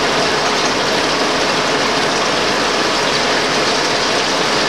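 Six-spindle Cone automatic lathe running and cutting, its spindles turning under a flood of cutting oil. Steady machine noise mixed with splashing coolant, with no let-up.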